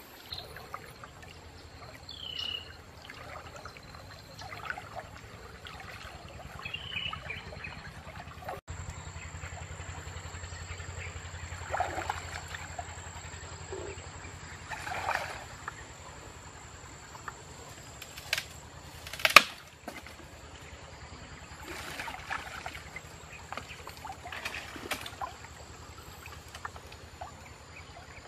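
Water splashing and sloshing in irregular bursts as a person wades through a slow river, with a single sharp crack about two-thirds of the way through.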